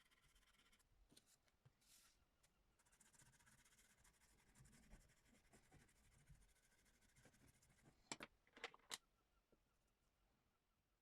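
Faint scratching and rubbing of a drawing tool on journal paper, with three sharp clicks about eight seconds in.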